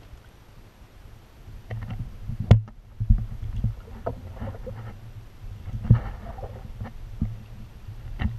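Paddle strokes in calm water, with dips and splashes over a low rumble. There are a few sharp knocks, the loudest about two and a half and six seconds in.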